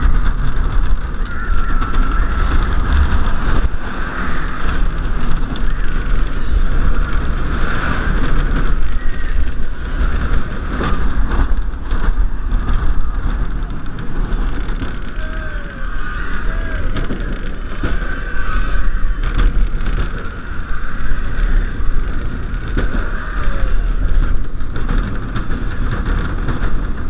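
Wind buffeting the microphone of a camera riding a Colossus train, an Intamin steel roller coaster, over a steady low rumble and rattle of the wheels running along the track at speed.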